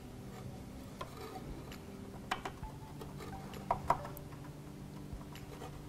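Small plastic-and-metal clicks and taps of an M.2 NVMe SSD being fitted into its motherboard slot. There are a few sharper clicks, one about two seconds in and a close pair near four seconds, over a faint steady hum.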